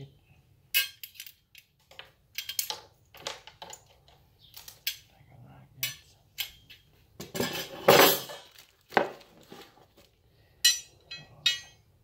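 Steel garage door opener rail pieces clinking and scraping against each other as they are picked up and handled: a run of irregular metal clinks, with a longer, louder scrape about two-thirds of the way in.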